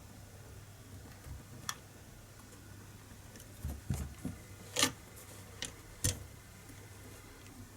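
Small metal parts of an air rifle's trigger mechanism clicking and knocking as they are handled and fitted by hand: a sharp click about two seconds in, a cluster of soft knocks near the middle, then a louder click and one more shortly after.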